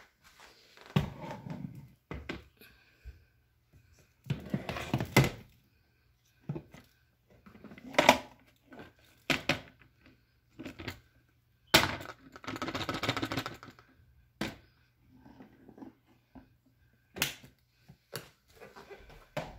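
Irregular thunks, knocks and short rustling scrapes of things being handled and set down, with no vacuum motor running.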